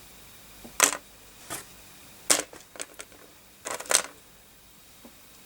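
Handling noises as a softened plastic connector socket is worked off a motherboard: a handful of sharp clicks and short scrapes at irregular intervals, the last and busiest cluster about four seconds in.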